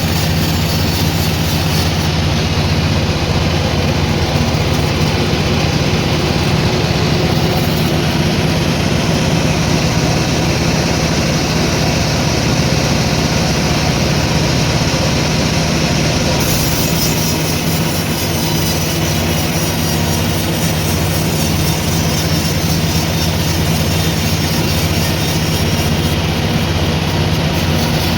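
Sawmill machinery running steadily, with a constant low hum under a continuous mechanical noise.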